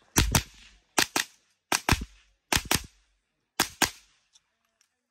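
Semi-automatic .22 LR mini rifle firing five quick double-taps: ten sharp cracks in pairs, each with a short ring after it.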